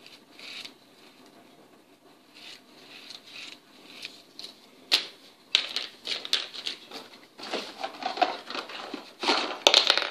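Plastic packaging crinkling, with small hard plastic Hot Wheels track parts clicking and clattering as they are handled and taken out. There are only a few soft handling noises at first. A sharp click about halfway through starts dense, loud rustling and clicking that lasts to the end.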